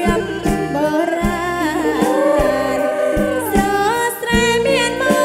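Live Kantruem (Northern Khmer folk) band music: a woman sings a winding vocal line, holding one long wavering note in the middle, over a band whose drum kit keeps a steady beat.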